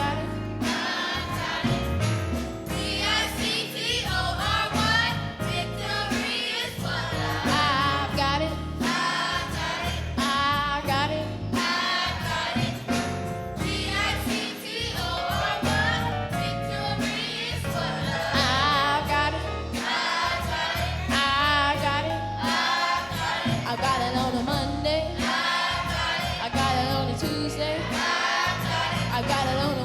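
Gospel choir singing with instrumental backing and a steady bass line.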